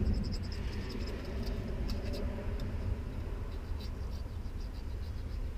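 Light, irregular metal clicks and scratching as the thermostat housing on a Chevy 454 V8 is worked loose by hand, over a steady low rumble.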